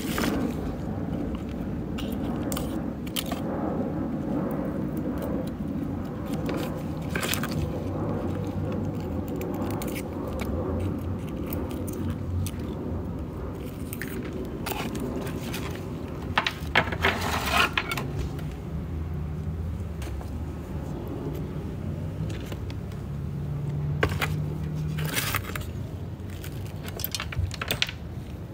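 Dry, dead succulent leaves being stripped off the stems by hand: scattered crackles and scrapes, with a louder cluster of crackles a little past halfway. A low, steady rumble runs underneath.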